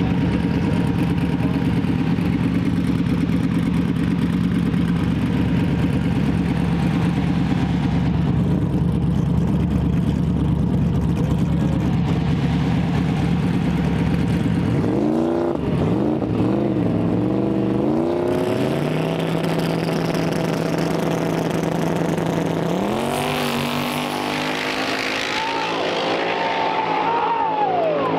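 Drag race car engines idling steadily at the line, then revved up and down as they stage. About 23 seconds in they launch, and the engine pitch climbs as the cars accelerate away down the track, dipping briefly at each gear change.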